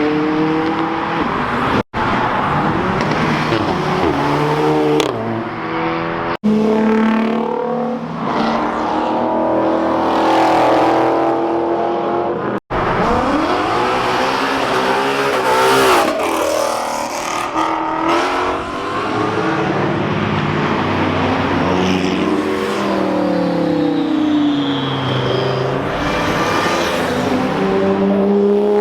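Several car engines accelerating hard and revving as they pass, their pitch climbing and dropping again and again. The sound breaks off abruptly three times between short clips.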